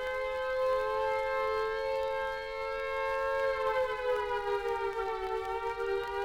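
British air raid siren wailing from an old 78 rpm record: two slightly mismatched tones held steady, then sagging in pitch about four seconds in and rising again near the end.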